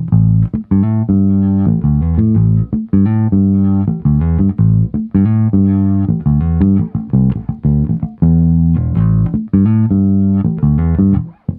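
Electric P-style bass played fingerstyle through a Caline Scuru S8B 20-watt mini practice amp, heard through a microphone at its small speakers: a busy, rhythmic line of plucked bass notes.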